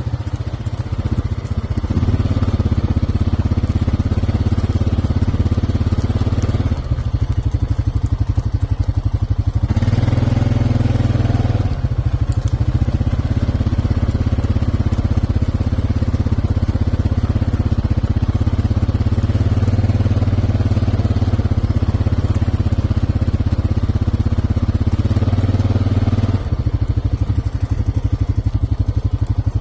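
A small engine running steadily at low speed, a continuous low hum whose tone shifts slightly a few times.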